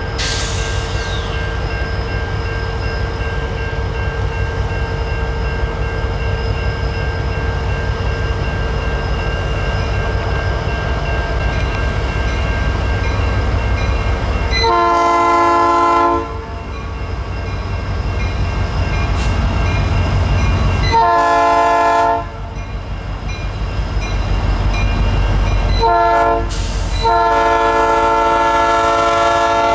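Freight train locomotive rumbling as it comes closer, then sounding its multi-tone air horn in the grade-crossing pattern: two long blasts, a short one, and a final long one.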